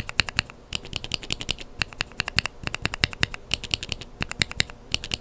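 Mechanical keyboard switches with lubed Kailh Burgundy linear stems being pressed and released rapidly, giving quick runs of sharp clacks several times a second.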